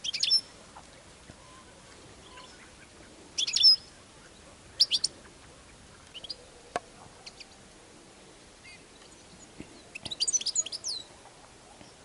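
Small songbirds giving short high chirping calls in scattered bursts, loudest about three and a half seconds in and again in a quick cluster around ten seconds.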